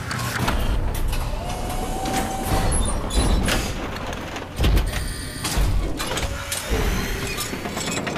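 Sci-fi sliding-door sound effects: a dense run of mechanical whooshing with several heavy thuds in the middle, as doors open one after another.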